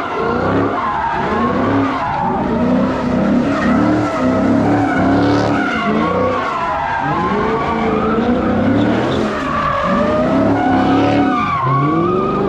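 Drift car doing donuts: its engine revs rise and fall over and over as the tyres skid and squeal.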